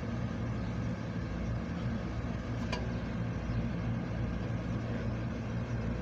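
Steady low machine hum with a constant drone, and a faint click about two and a half seconds in.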